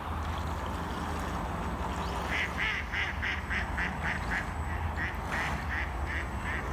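A duck quacking in a rapid series of about three quacks a second, starting a couple of seconds in, over a steady low rumble.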